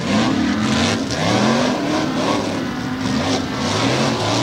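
Tough-truck race engines revving hard on a dirt track, their pitch climbing and dropping over and over as the throttle is worked through the course.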